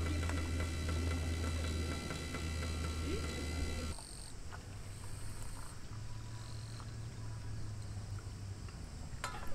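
Portable gas stove burner running steadily under a kettle, cutting off abruptly about four seconds in and leaving only faint background sound.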